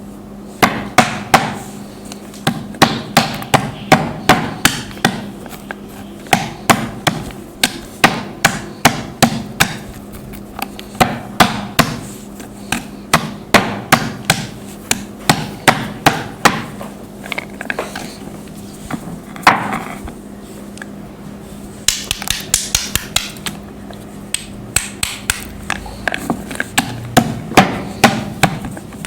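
Chunks of khadiya mitti, a white chalky clay, being crushed and crumbled: a long run of sharp cracks and crunches, roughly two a second, easing off for a few seconds in the late middle before a quick flurry of snaps. A faint steady hum runs underneath.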